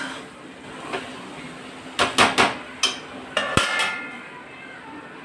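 A long steel spatula knocking and clinking against a stainless steel kadai while stirring okra, with a cluster of sharp metal clanks about two seconds in. Then a ringing metallic clatter as a steel plate is set on the pan as a lid.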